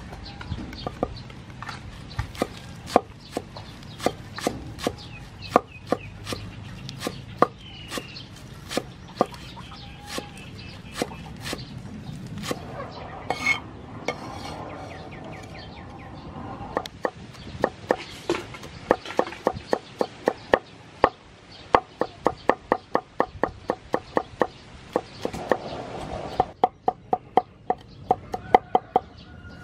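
Cleaver chopping green onions on a wooden cutting board. Single knocks come at first, spaced unevenly, then speed up to a fast, even rhythm of about three to four strokes a second. Near the end come quick strokes mincing garlic.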